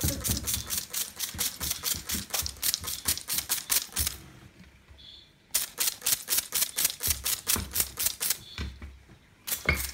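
Young great grey owl beating its wings against a hard lacquered tabletop in bathing motions, treating the glossy surface as water. The wings strike the surface in a fast patter of taps, about seven a second, in two bouts with a pause of about a second and a half between them.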